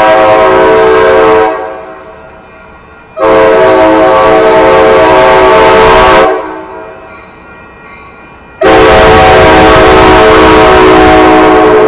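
Horn of an approaching Amtrak San Joaquin train, sounded from its leading cab car: three long, loud blasts of a chord of steady tones. The first is already sounding and stops about a second and a half in, the second lasts about three seconds, and the third starts near the end.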